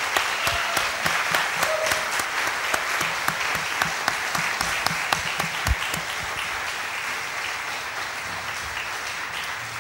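Audience applauding, a dense clapping that eases off a little in the last few seconds, with sharper claps from close to the microphone over the first six seconds.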